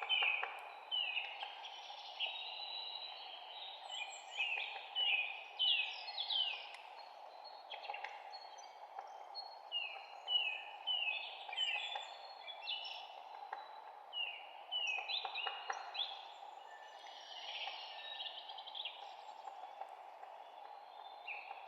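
Several songbirds chirping, with many short falling chirps overlapping one another over a steady low background hiss.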